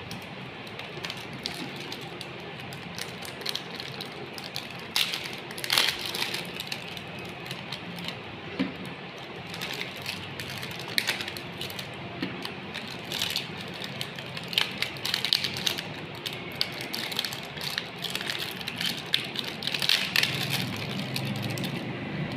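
Meat grinder running on jelly candy: a steady hum with irregular clicks and crackles as the candy is crushed through it.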